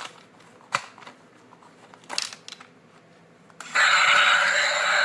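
Several light plastic clicks and taps, then about two-thirds of the way in a battery toy's electronic sound effects switch on, loud and continuous with steady electronic tones over a noisy, music-like soundtrack.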